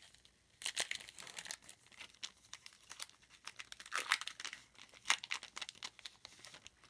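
The wrapper of a 2014 Topps Football card pack crinkling and tearing as it is pulled open by hand, in irregular crackles with a short lull just after the start.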